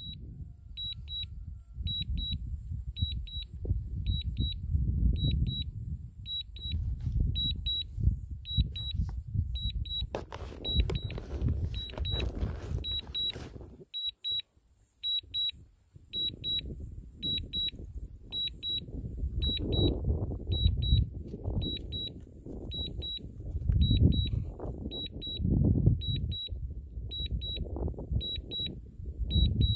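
A drone remote controller beeps in short high double beeps, about two pairs a second, without a break: the alert that the drone is on automatic return-to-home. Under it runs a low, uneven rumble of wind on the microphone that rises and falls in gusts.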